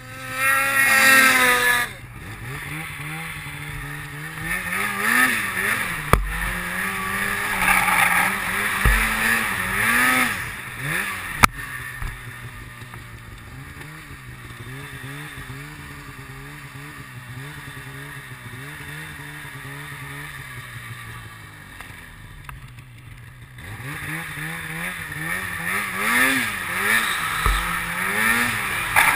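Snowmobile engine under way with the throttle worked on and off. It revs up hard right at the start, then rises and falls, settles into a steadier run through the middle, and revs again near the end. Two sharp knocks come in the first half.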